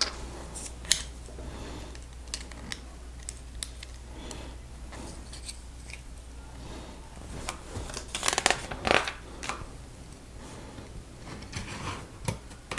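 Plastic LEGO pieces clicking as they are handled and pressed together, scattered clicks with a quick cluster about eight to nine seconds in.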